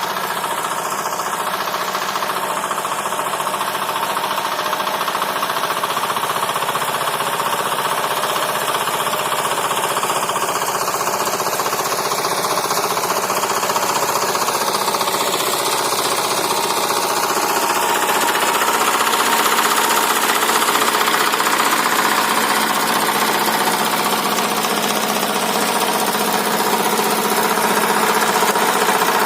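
Walk-behind tractor engine running steadily under load while tilling and hilling between potato rows, growing a little louder toward the end.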